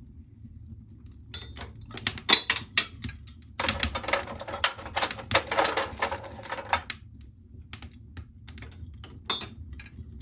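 Freshly lit kindling fire crackling and snapping in a fireplace, with sharp pops in irregular clusters, densest in the middle, over a low steady rumble.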